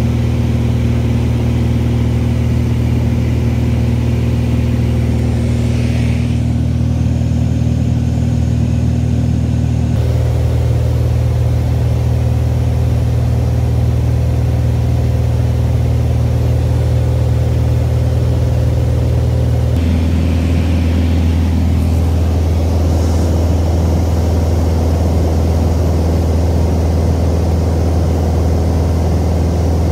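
Single-engine Mooney's piston engine and propeller droning steadily inside the cabin in cruise flight. Its tone shifts abruptly twice, and near two-thirds of the way through it drops to a lower pitch.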